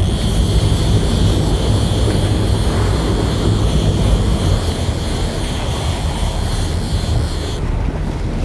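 Fishing boat's engines running steadily in reverse as the boat backs down hard on a hooked sailfish, a low continuous rumble with wind and water noise over it.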